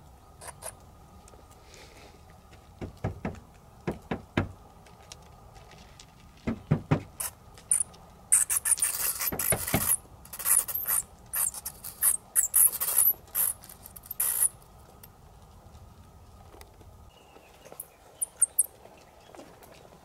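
Bats hidden inside a hollow wooden wall, squeaking shrilly and scrabbling and fluttering against the boards. A few scattered knocks come first, then a long dense spell of high squeaks and scratching in the middle, and a few short chirps near the end.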